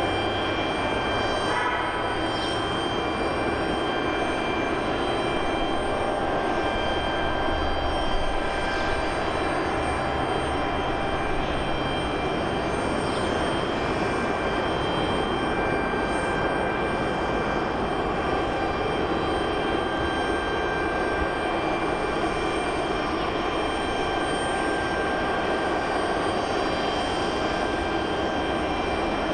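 Airbus A330-300's Rolls-Royce Trent 700 jet engines running as the airliner touches down and rolls out on the runway: a steady rumble with a whine of several steady high tones over it.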